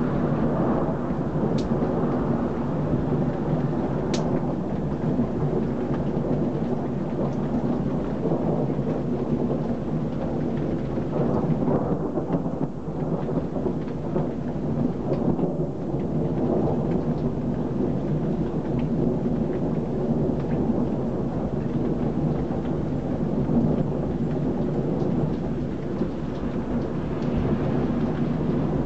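Thunderstorm with a steady, dense rush of heavy rain. A couple of sharp ticks come in the first few seconds.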